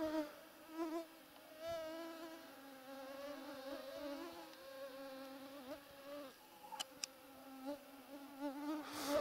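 Mosquito whining close to the microphone, a steady hum that wavers gently in pitch as it flies about, with a couple of faint clicks about seven seconds in.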